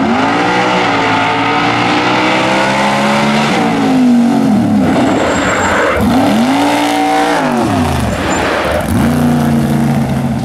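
Small open racing fire truck's engine revving up and down: high and held for a few seconds, dropping off, climbing and falling again, then rising and holding near the end.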